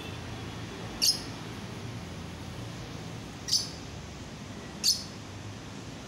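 Lovebird giving three short, high, shrill chirps, a second or two apart.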